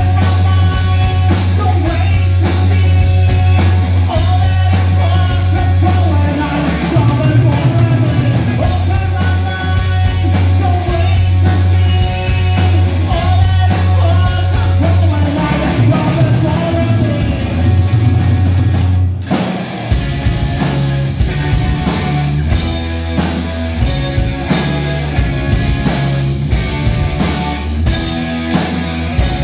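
Live dark punk rock band playing loud: electric guitar, bass guitar and drum kit over a heavy bass riff, with a vocalist singing into the microphone. The band cuts out for a moment about two-thirds of the way through, then comes back in.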